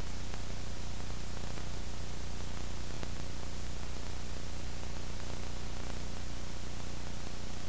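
Steady hiss with a low electrical hum under it, unchanging throughout: the noise floor of a soundtrack laid on silent home-movie film, with no other sound.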